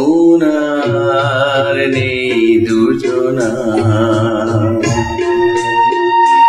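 Electronic keyboard accompaniment to a Bengali song, organ-like in sound: a melody over sustained chords, with a long held note coming in about five seconds in.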